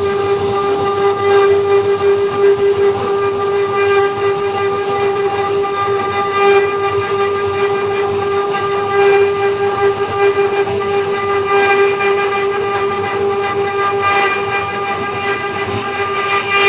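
CNC router spindle running at a steady high whine while its bit carves into a wooden board, with the rough hiss of the cut wavering in loudness underneath.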